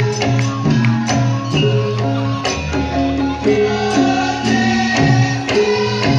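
Live folk-style ensemble music with a steady beat of about two strikes a second, jingling percussion and melodic instruments playing held notes.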